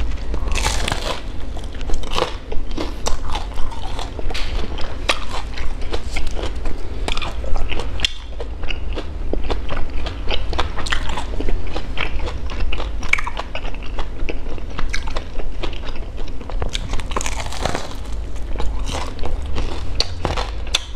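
Close-up biting and chewing of a fried, sesame-coated Vietnamese rice-flour donut (bánh cam donut). Its crisp fried crust crunches in many small crackling clicks, over a low steady hum.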